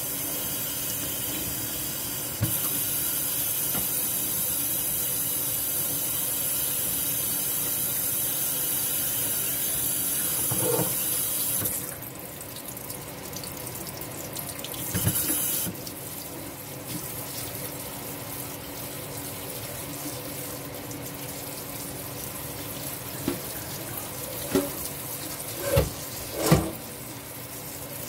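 Kitchen tap running onto rinsed ground beef in a metal colander in a stainless steel sink, a steady splashing hiss. The hiss drops away about twelve seconds in, comes back briefly, then stays lower. Near the end a few sharp knocks as the colander is handled.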